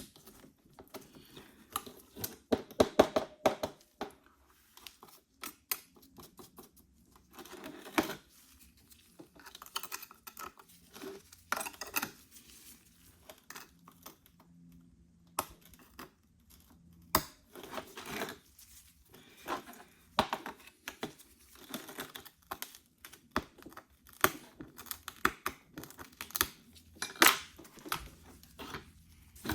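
Cracked iPhone SE back glass being scraped and pried off the frame with a hand tool: irregular crackling, ticking and scraping, in clusters of quick clicks.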